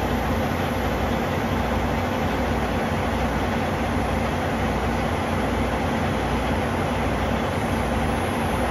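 Semi truck's diesel engine idling steadily, running its air system to feed a glad hands air hose that is inflating a low dual rear tire.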